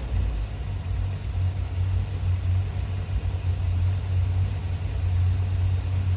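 1981 Corvette's 350 small-block V8 idling steadily, with a low, even rumble.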